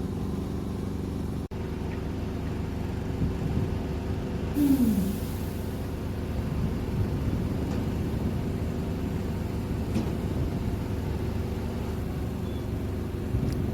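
Heavy diesel engine of a mobile truck crane running steadily, with a short hiss of released air about four and a half seconds in.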